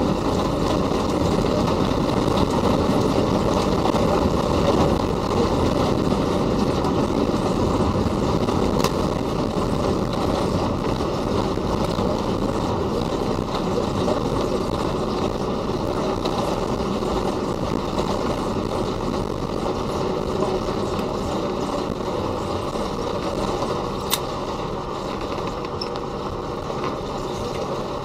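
Ilyushin Il-96-300 airliner rolling out on the runway after touchdown, heard inside the cabin: a loud, steady rush of its Aviadvigatel PS-90A turbofans and airflow that grows gradually quieter as the aircraft slows. A single brief click near the end.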